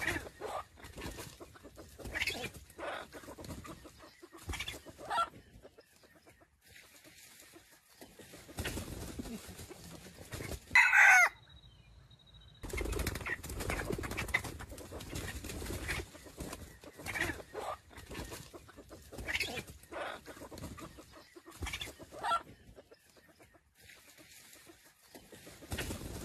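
Junglefowl roosters clucking and calling over and over, with one loud, short crow about eleven seconds in that is cut off by a brief moment of silence.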